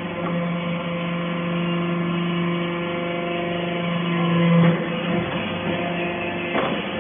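Hydraulic metal-shaving baler running: a steady motor-and-pump hum that swells and then eases off about four and a half seconds in, followed by a couple of knocks near the end.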